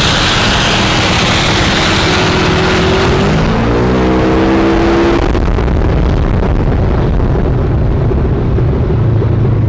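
Side-by-side UTV engine running as it drives across a grass lawn, with loud wind noise over the microphone. The engine note rises about three to five seconds in, then settles into a low steady drone.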